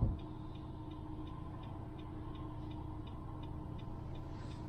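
Steady, even ticking, about three ticks a second, over a low steady hum.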